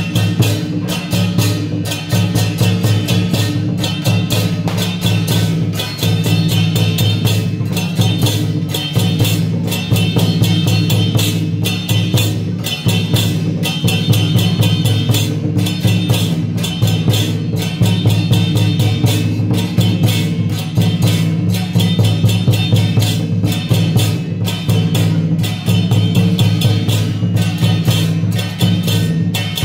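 Loud processional drum and percussion music with a steady, fast beat over a sustained low bass.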